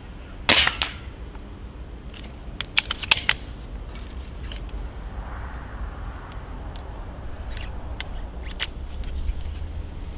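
Stoeger XM1 S4 Suppressor 4.5 mm PCP air rifle firing one suppressed shot about half a second in: a single sharp crack with a short tail. About two seconds later comes a quick run of four or five sharp clicks, and a few fainter clicks follow near the end.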